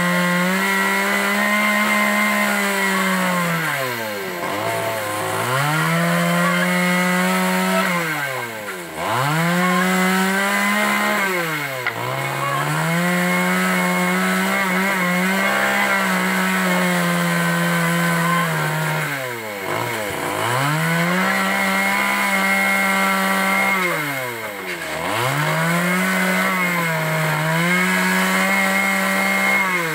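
Petrol chainsaw cutting through the ends of wooden roof boards, running at full throttle for several seconds per cut and dropping back toward idle between cuts, about six times.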